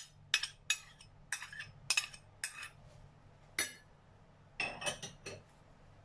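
Metal spoon clinking and scraping against white ceramic bowls while scraping sauce out of a small bowl: a string of short sharp clinks, spaced about half a second apart at first, then a quick cluster of them near the end.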